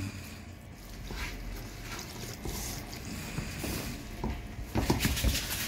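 Water poured in a thin stream from a plastic jug into a metal bowl of maida flour while a hand squishes and mixes it into wet parotta dough, with a few short knocks near the end.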